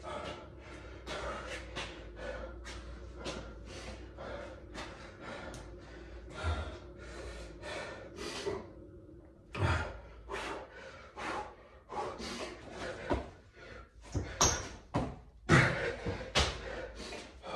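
A man breathing hard and fast, about two heavy breaths a second, while recovering between burpees. From about ten seconds in, louder thuds of hands and feet on a tiled floor join the gasping breaths as he goes back into burpees with push-ups.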